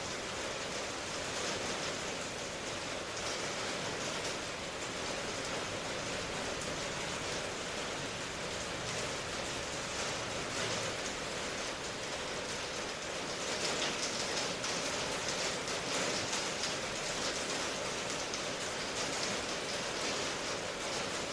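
Steady rain falling: a dense, even hiss of rain with no single drops standing out, growing a little louder about two-thirds of the way through.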